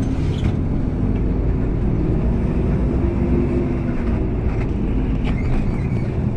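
Steady interior drone of an express coach driving along a highway, heard from inside the cabin: a low engine hum mixed with road and tyre noise.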